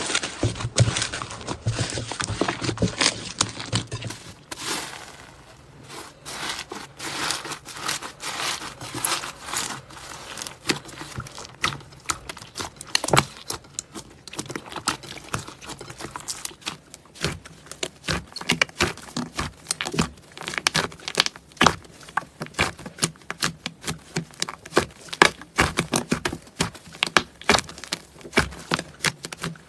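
Slime being squished and pressed by hand, giving a dense run of small sticky clicks and crackles, with a cut to another clip about four seconds in.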